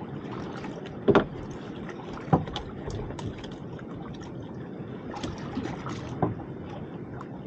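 Water lapping and splashing against the hull of a small open boat, with a few short sharp knocks, the loudest about a second in and another just before two and a half seconds, as fish are swung aboard and handled.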